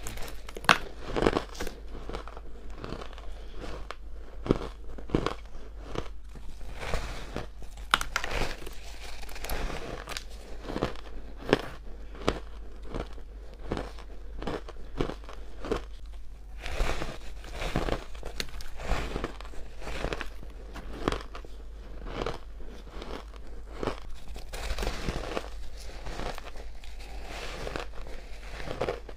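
Crushed ice chunks being bitten and chewed close to the microphone: a dense run of irregular crisp crunches and crackles, a few much louder than the rest.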